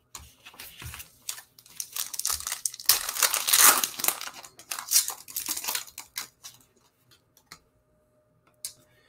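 Foil wrapper of a Panini Mosaic basketball card pack being torn open and crinkled, a dense crackling that is loudest about three to four seconds in. It then gives way to a few faint clicks as the cards are handled.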